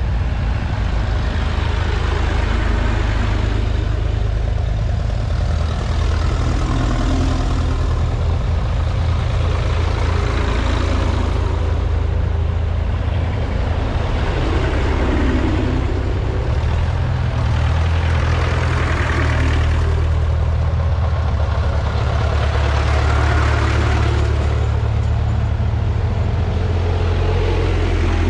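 Vintage tractor engines running steadily as a procession of tractors drives past, with the sound swelling every few seconds as each one passes close by.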